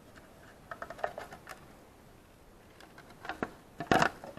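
Hoverboard's casing being handled and opened by hand: scattered light clicks and taps, then a couple of louder knocks near the end, the loudest about four seconds in.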